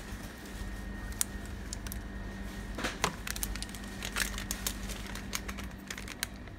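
Scattered light crinkles and clicks of plastic packaging being handled, the sharpest about three seconds in, over a steady low hum.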